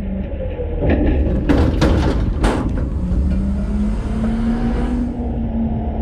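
Front-load garbage truck running with a steady low engine rumble. A few loud bangs and crashes come about one and a half to two and a half seconds in, then a hiss that cuts off about five seconds in, over a steady whine.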